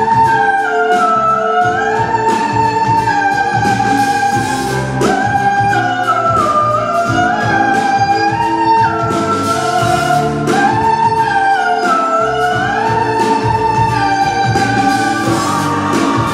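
A woman singing a song with instrumental accompaniment, her melody moving in smooth glides and long held notes.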